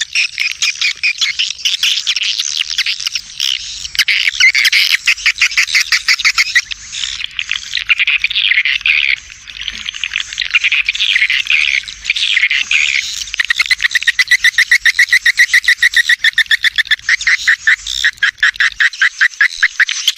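Swiftlet calling sound: a recorded swiftlet colony twittering with dense, loud chirps, turning about two thirds of the way in to a fast, evenly spaced train of chirps. It is the lure call played at swiftlet houses to draw swiftlets in to roost and nest.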